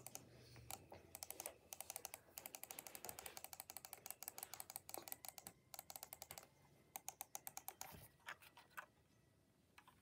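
Jitter clicking on a Dell office mouse's button: a fast run of clicks, about ten a second. It breaks off briefly past the middle, then goes on for another couple of seconds.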